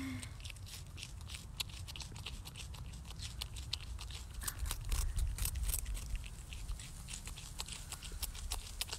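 North American porcupine gnawing hard, crunchy food held in its front paws: a quick, uneven run of crisp crunches and bites over a low rumble.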